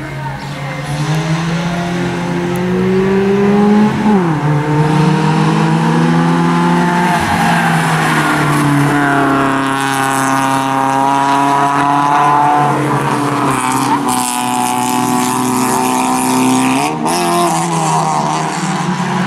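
Rallycross race cars' engines running hard on the track, climbing in pitch and then dropping sharply at gear changes about four seconds in and again near the end, with more than one engine heard together in the middle.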